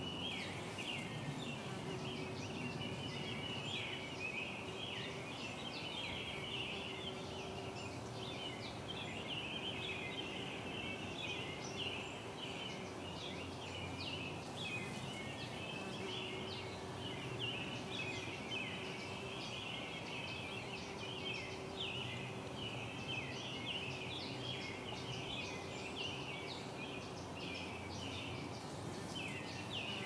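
A dense morning bird chorus: many small birds chirping and twittering in short, overlapping high calls without a break, with a faint low hum coming and going underneath.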